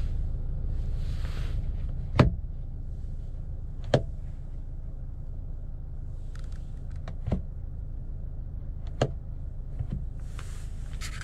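Sharp clicks of a Land Rover Defender's smart rearview mirror tab being flicked to toggle the camera view, four clear clicks with fainter ones near the end, over a steady low cabin hum.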